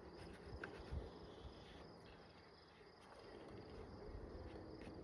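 Honeybees buzzing faintly around an open hive, a steady low hum, with a few soft low knocks from handling about a second in.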